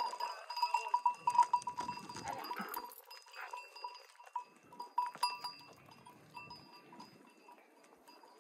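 Metal bells on a flock of sheep clanking irregularly as the animals walk, fading toward the end, with the shuffle of hooves on dry ground.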